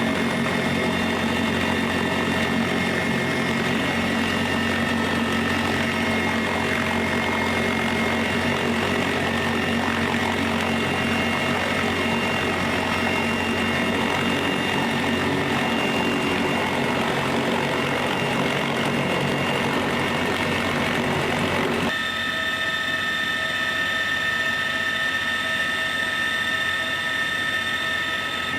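Military aircraft turbine engines running with a steady whine. About 22 seconds in, the sound cuts abruptly to a different, higher-pitched engine whine.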